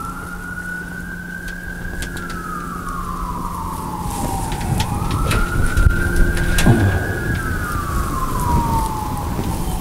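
Emergency vehicle siren on a slow wail, its pitch rising and falling twice, about five seconds per cycle.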